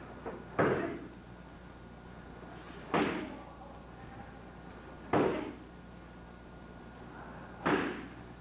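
Kicks landing on handheld focus pads: four sharp smacks about two to two and a half seconds apart, each followed by a short echo.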